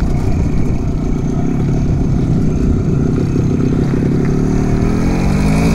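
Vintage two-stroke motorcycle engine running under way, with wind rushing over the microphone; the engine revs climb over about the last second.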